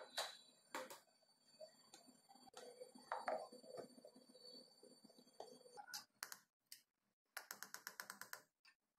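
Faint clicks and taps of a stainless-steel mixer-grinder jar, its plastic lid and a spoon being handled. Near the end comes a quick run of about ten ticks in one second. The grinder is not heard running.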